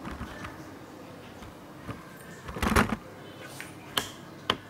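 Quiet room background, broken by one short knock about two and a half seconds in and two sharp clicks half a second apart near the end.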